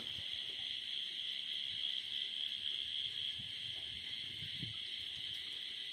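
Steady, unbroken high-pitched chorus of night insects such as crickets.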